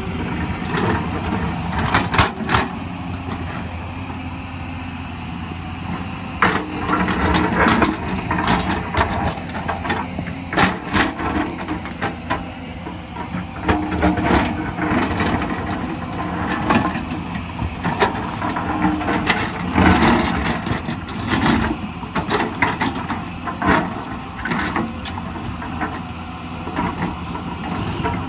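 Hyundai crawler excavator's diesel engine running steadily under load, while its steel bucket scrapes and knocks against rock and stony soil, with repeated clatter of stones in bunches of sharp knocks.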